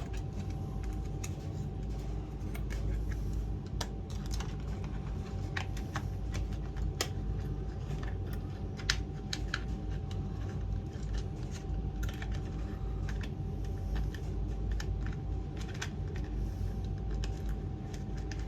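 Irregular light plastic clicks and taps from handling a toy RC excavator and its battery compartment, over a steady low hum.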